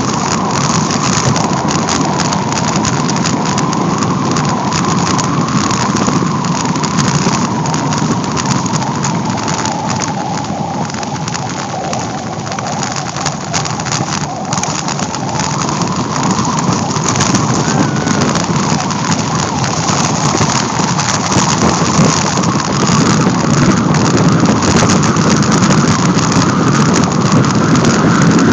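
Bicycle rolling downhill on a gravel road: a steady rush of tyre crunch and rattle over loose stones, with wind on the microphone. It eases a little partway through and grows louder again near the end.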